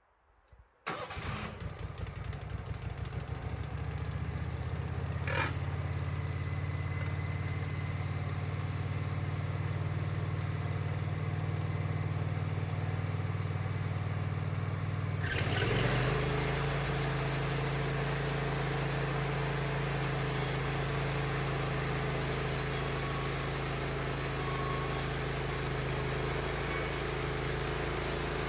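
Wood-Mizer LT15 sawmill's engine cranking and catching about a second in, then running steadily. About halfway through it speeds up and gets louder, with added hiss and rattle, and holds there.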